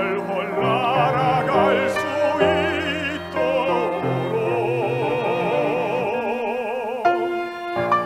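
A tenor sings a Korean art song in full operatic voice with wide vibrato, accompanied by violins. His phrase ends about seven seconds in and the instruments carry on alone.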